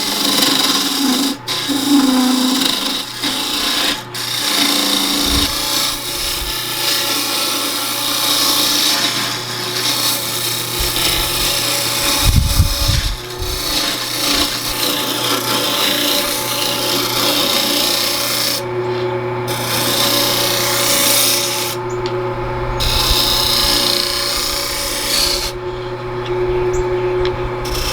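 Wood lathe spinning a cedar bowl blank while a turning tool cuts into it: a steady, loud scraping rasp over the lathe motor's hum. The cutting noise drops out briefly three times in the second half, leaving the motor running.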